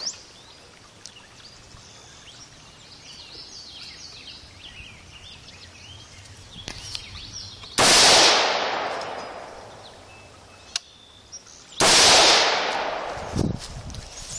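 Two shots from a scoped AR-style rifle fired off a bench rest, about four seconds apart, each trailing off in a long echo of about two seconds. Birds chirp faintly in the lull before the first shot.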